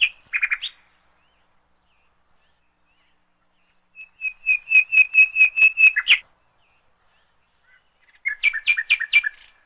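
Rapid runs of short, high chirps, about six a second: a brief run at the start, a longer run of about ten chirps from around four seconds in, and a run on two alternating pitches near the end.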